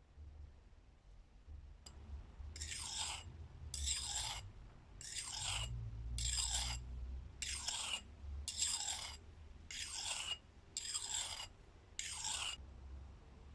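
Steel knife blade drawn across a sharpening stone in about nine even rasping strokes, roughly one a second, starting a couple of seconds in.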